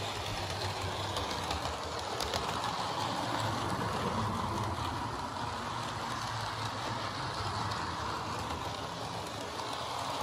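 HO scale model train with passenger coaches running along the track: a steady rolling whir of its wheels on the rails.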